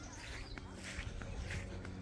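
Footsteps swishing through grass at a steady walking pace, about two steps a second.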